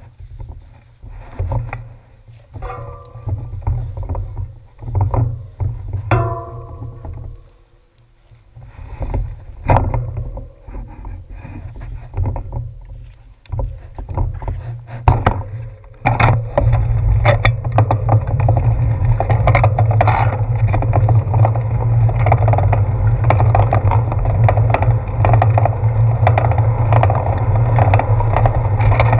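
Wind buffeting and road rumble on a handlebar-mounted action camera's microphone as a bicycle rides a paved path. The rumble comes and goes at first, with a few sharp clicks and two short squeaks, then turns steady and louder about halfway through as the bike speeds up.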